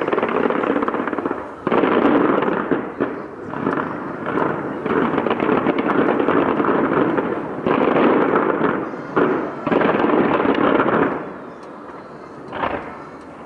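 Fireworks exploding in a dense barrage of bangs and crackling shell bursts. It dies away about eleven seconds in, with one last bang near the end.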